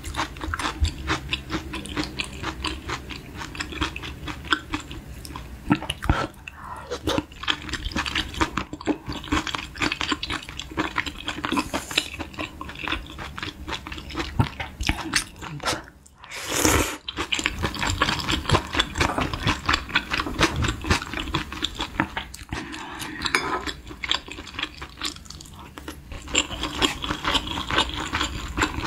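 Close-miked eating sounds: wet chewing, smacking and clicking of the mouth on Korean beef-intestine hotpot (gopchang jeongol) with glass noodles. There is one louder slurp about 16 seconds in.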